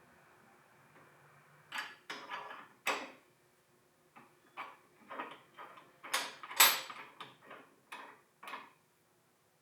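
A string of about a dozen sharp clicks and knocks of hard objects being handled, irregularly spaced, the loudest about two-thirds of the way through.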